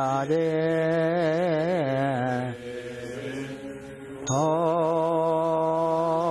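Buddhist chanting: a voice holds long, slowly wavering notes. About two and a half seconds in it sinks lower and softer, then comes back strongly on a new long note near the middle.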